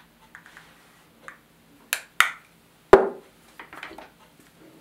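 A small metal camera lens and its cap being handled and set down on a wooden table: two sharp clicks about two seconds in, then a heavier knock a moment later, followed by soft rustling.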